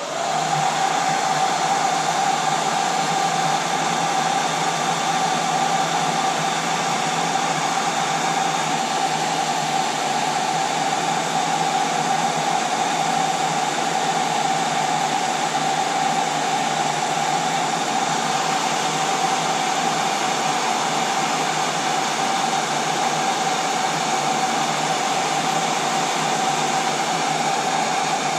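Braun hair dryer running steadily: a rush of blown air with a steady mid-pitched motor whine, used as a heat gun to shrink heat-shrink tubing.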